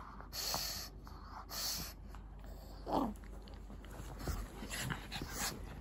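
A Shih Tzu and a pug play-fighting at close quarters: short, noisy breaths come in bursts, with a brief vocal sound falling in pitch about three seconds in.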